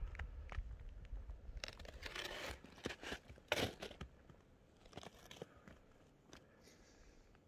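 Faint, irregular crunching of steps in snow, with a low rumble that fades out about a second and a half in.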